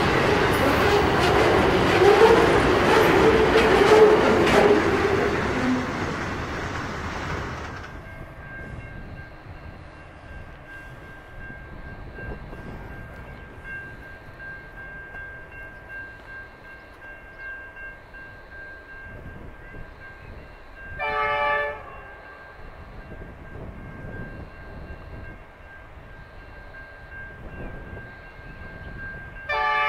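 Intermodal container freight train wagons rolling past, with rail noise and a wheel squeal, until a cut about eight seconds in. Then an approaching Pacific National NR class locomotive sounds its horn in two short blasts, about a second each: one about two-thirds of the way through and one at the very end.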